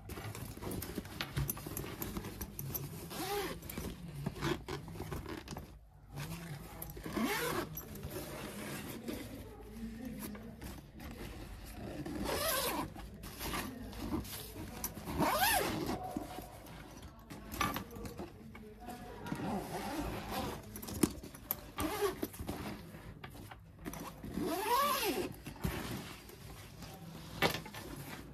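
Zipper on a Hundred badminton kit bag being run in several pulls, each a short rising-and-falling sweep, over the rustle of the nylon bag being handled, with a few sharp clicks.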